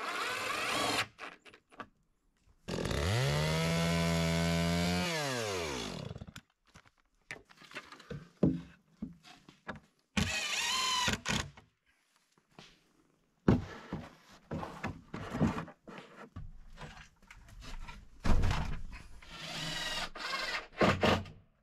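Cordless drill driving screws into wooden boards: a steady motor whine for about three seconds that falls in pitch as it stops, and another short run about ten seconds in. Scattered knocks and thumps of wood follow.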